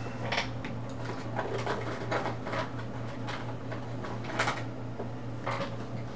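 Colouring strokes on paper: short, irregular scratchy strokes, about nine of them, the loudest a little past four seconds in, over a steady low hum.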